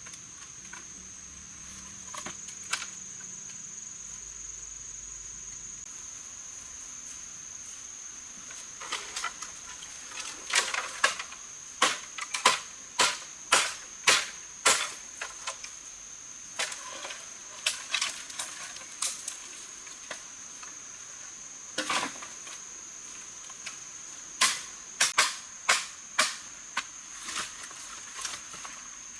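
Steady high-pitched insect trill, like crickets, with many sharp clicks and taps over it, coming in irregular runs.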